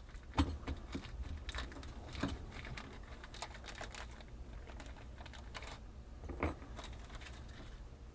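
Small metal parts such as solder tips clicking and clinking as they are handled and fitted into place, in irregular light taps. The loudest knocks come about half a second in and at about six and a half seconds.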